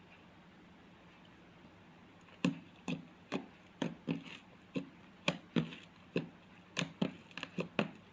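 Slime being squeezed and played with by hand, making a quick run of sharp clicking pops, about two to three a second, starting about two and a half seconds in.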